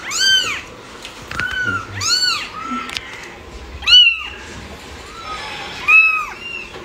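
Young kitten mewing: about seven short, high-pitched calls, each rising and falling in pitch.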